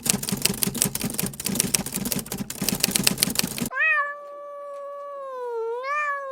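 Dense, rapid clicking and crackling for the first few seconds, cut off abruptly, then a domestic cat's long drawn-out meow, held at one pitch with a few small bends.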